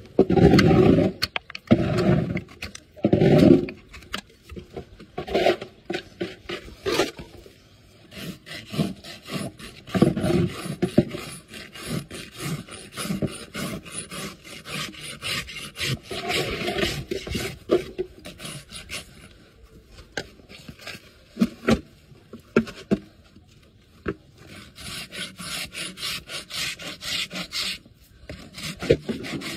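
Farrier's rasp filing a horse's hoof: repeated rough scraping strokes across the horn, three long heavy strokes at the start, then a long run of shorter, lighter strokes.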